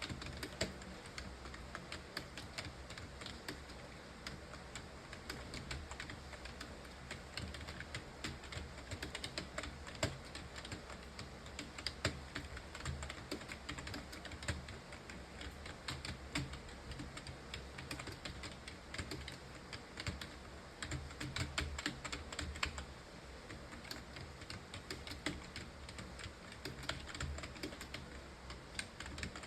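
Computer keyboard typed on steadily and fast: a dense, unbroken run of key clicks with an occasional louder keystroke.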